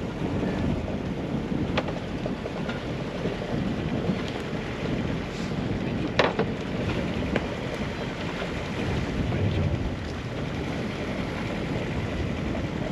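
Wind buffeting the microphone over water sloshing against a sailing yacht's hull, a steady low rumble. A few sharp knocks sound through it, the loudest about six seconds in.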